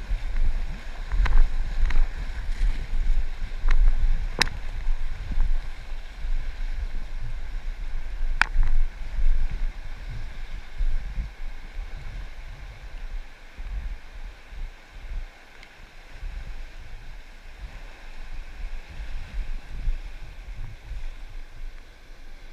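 River water rushing around an inflatable kayak, with wind rumbling on the microphone. A few sharp clicks come in the first five seconds and once more near the middle, and the rush eases off somewhat in the second half.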